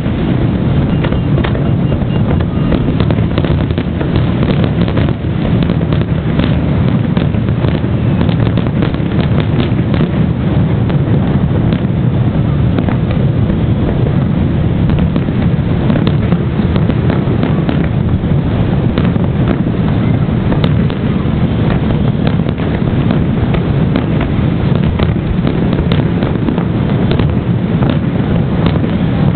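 Fireworks display: a dense run of bangs and crackles, many per second, over a continuous heavy rumble.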